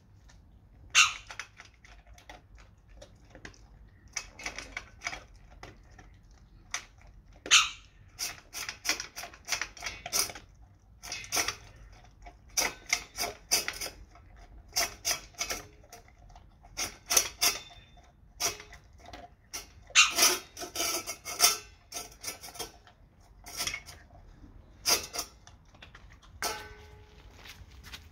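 Dog eating dry kibble from a stainless steel bowl: irregular bursts of crunching, with the metal bowl clinking and scraping on the tile floor as it is nosed around.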